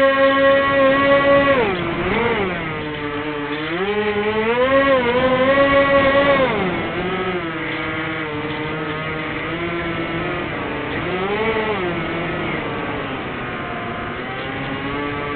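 Twin electric motors and propellers of a Firebird Stratos RC plane running, their buzzing whine rising and falling in pitch as the throttle is worked, higher and louder at the start and again a few seconds later, then settling lower.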